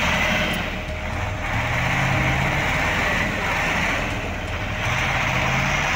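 Heavy diesel truck engines running hard under load, the sound swelling and easing off about three times as the revs rise and fall, while a concrete mixer truck tows a dump truck stuck in mud on a cable.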